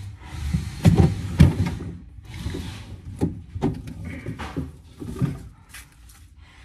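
Irregular knocks and clunks of kitchen things being handled and set down, the loudest about a second in.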